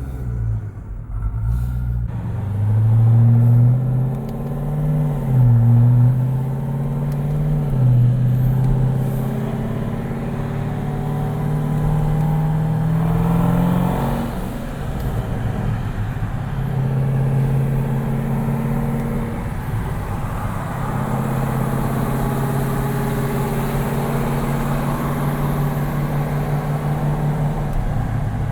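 Twin-turbo Jeep Grand Cherokee SRT's V8 under way, its pitch rising and dropping several times in the first few seconds as it pulls through gear changes. It then climbs steadily for several seconds and settles into steadier, lighter running.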